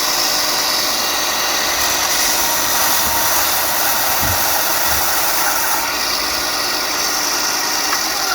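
Ryobi 4-inch belt and 6-inch disc sander running with a steady hum and a loud, even rasping, as a piece of 2x4 is sanded on the belt.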